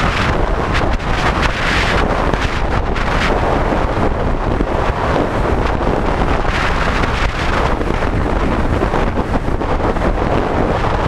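Wind buffeting a helmet camera's microphone on a fast mountain bike descent, over a steady rush of tyre and trail noise with frequent knocks and rattles from rough ground.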